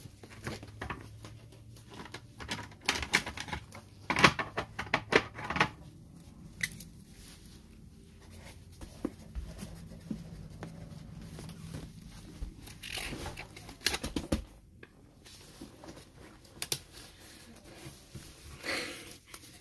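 Trading card packs and cards being handled: wrappers crinkling and tearing, with small clicks and taps. The sounds come in clusters with quieter gaps between them.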